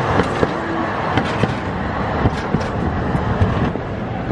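A city tram passing close by on street rails: a steady rumble mixed with street traffic noise, with a scatter of short sharp knocks.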